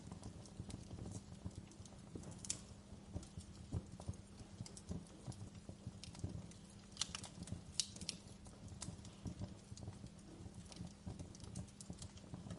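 Wood fire crackling: a steady run of small pops and clicks with a few sharper snaps, about two and a half seconds in and again around seven to eight seconds, over a low steady rumble.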